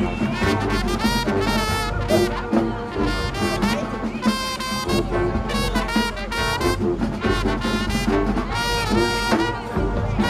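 Marching band playing: brass (trumpets and trombones) carrying held chords and riffs over a steady drumline beat.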